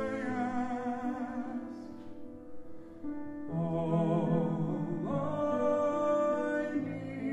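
A woman soloist singing a slow ballad with wide vibrato, amplified through a microphone, over piano accompaniment; the sung line breaks off about two seconds in and comes back about a second and a half later.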